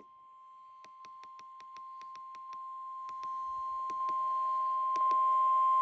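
Emergency Alert System attention tone: one steady tone near 1 kHz that grows louder in steps, with a short click at each step.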